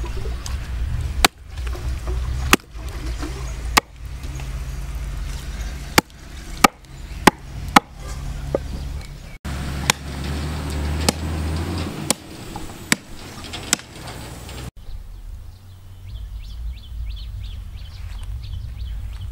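A hatchet chopping a cow's foot on a wooden stump block: sharp knocks at uneven intervals over a low rumble. About fifteen seconds in the chopping stops and a rapid high chirping, about three a second, takes over.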